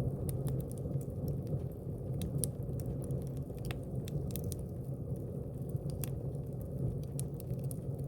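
Fire burning in a fireplace: a steady low rumble of flames with scattered sharp crackles and pops, irregular and several a second.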